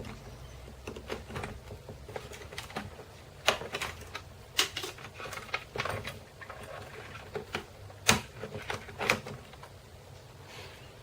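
Irregular plastic clicks, taps and knocks from the Gateway MD2614U laptop's screen assembly and casing being handled and freed by hand.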